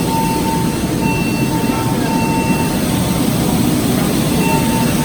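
Steady, loud rush of water gushing from a burst fire-sprinkler pipe. A fire alarm's electronic tone sounds on and off behind it.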